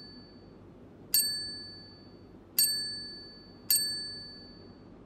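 A high, bell-like metallic ding rings three times, a second or so apart, each strike sharp and fading over about a second.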